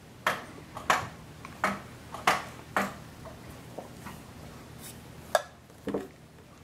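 A metal spoon clinking, a series of sharp irregular taps, several in the first three seconds and a few more near the end.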